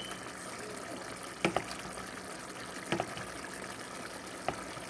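Tomato fish stew simmering in a pan: a steady bubbling hiss with three sharp pops about a second and a half apart.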